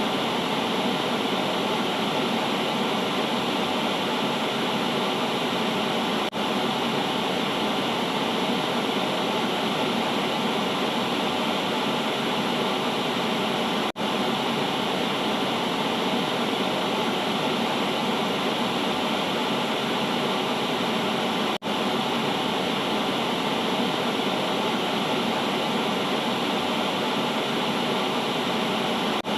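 Steady hiss of static noise at an even level, dipping out for an instant three times.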